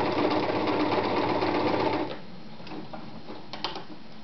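Privileg Voll-Zickzack Superleicht 360 electric sewing machine running steadily, stitching a straight seam, then stopping abruptly about two seconds in. A few light clicks follow as the fabric is handled at the machine.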